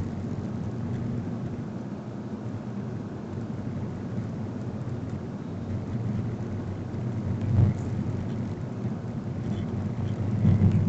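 Car driving along a city street, heard from inside the cabin: a steady low rumble of engine and tyre noise, with a single sharp thump about two-thirds of the way through and the rumble getting louder near the end.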